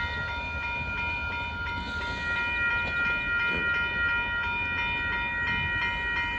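Amtrak Texas Eagle passenger train passing the crossing and moving off, a low rumble under a steady high ringing tone that holds without a break.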